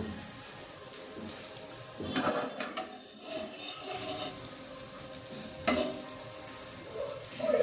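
A utensil stirring and scraping in a cooking pan, with a loud scrape about two seconds in and a sharp knock against the pan near six seconds.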